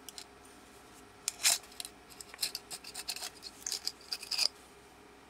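Memory circuit board scraping and clicking against the rim of a small stainless-steel can as it is worked out by hand: a string of short scrapes and clicks, the loudest about a second and a half in and a busy cluster in the second half.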